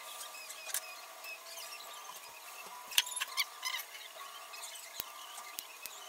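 Wire-mesh cage trap being worked by hand: a few sharp clicks and taps of wire, the loudest cluster about halfway through, over continual faint high chirping.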